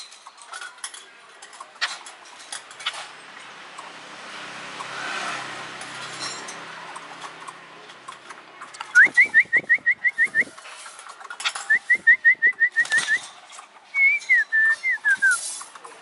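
A caged blue magpie (giẻ cùi) calling: two runs of about eight quick, rising whistled notes, then a shorter run of notes that step down in pitch near the end. Soft rustling and light clicks come before the calls.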